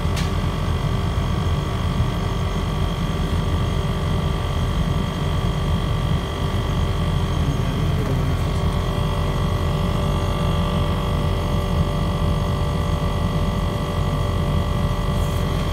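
Panasonic non-inverter air conditioner's outdoor unit running steadily while being charged with R410A refrigerant: a constant hum from the compressor and condenser fan, with several thin, steady whining tones above it.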